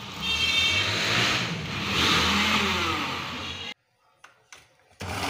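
Electric food chopper motor running as it grinds boiled chana dal, cutting off suddenly after about three and a half seconds and starting again near the end.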